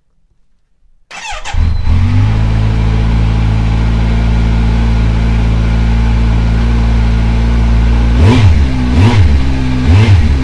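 2017 Kawasaki Z900's fuel-injected inline-four cold-starting at freezing after sitting about a month. The starter cranks briefly about a second in, the engine catches at once and settles into a steady idle, then a few quick throttle blips come near the end.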